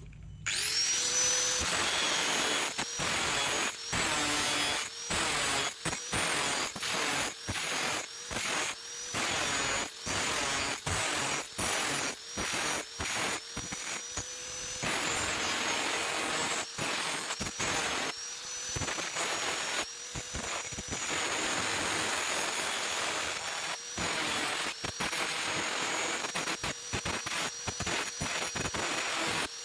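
Stick welding with an E6013 rod on thin sheet metal: steady arc crackle and hiss, broken off and restruck in short stitches roughly every half second to a second, with a steady high whine underneath.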